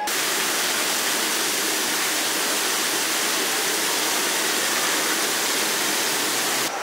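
Steady, even rush of falling water, with no distinct strokes or tones; it begins and ends abruptly.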